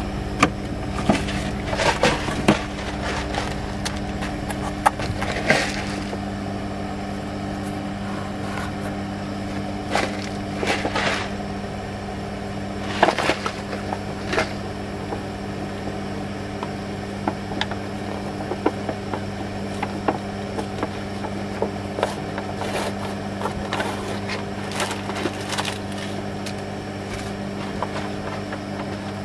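Stainless steel pot of water heating on a camp stove, giving off irregular ticks and crackles as the water comes up to the boil, more of them in the first half. A steady mechanical hum runs underneath.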